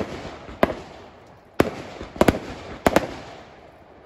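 Aerial fireworks bursting overhead: about six sharp bangs in the first three seconds, each trailing off in a rolling echo, the later ones coming in quick pairs.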